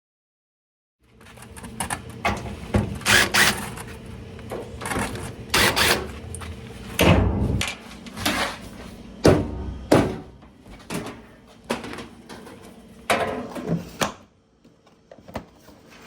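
A series of irregular knocks, clunks and clatters, as of hard objects being handled, over a steady low hum.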